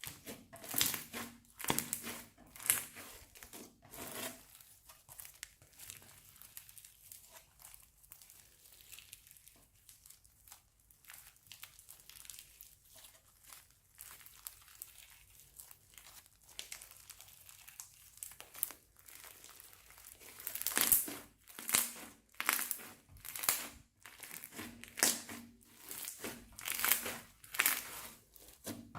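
Slime and plastic piping bags being handled and squeezed: irregular short bursts of crinkly noise, frequent in the first few seconds, sparse and faint through the middle, then coming quickly and louder again in the last third.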